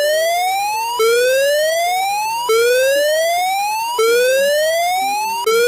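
Electronic emergency alert alarm tone, siren-like: a whooping note that rises steadily for about a second and a half, drops back abruptly and starts again, over and over.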